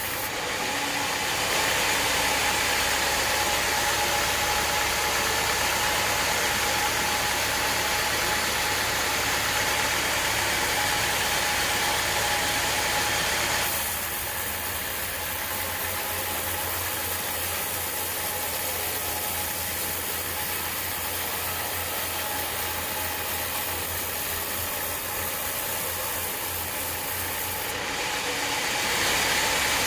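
Sawmill running steadily with a constant machine tone and a hissing cutting noise; the hiss drops back about halfway through and rises again near the end.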